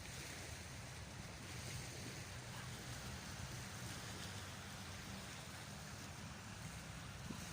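Seaside ambience: steady surf and wind noise on the microphone, under a constant low hum.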